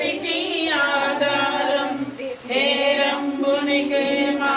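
A devotional song sung in long, held notes, with a short break about two seconds in.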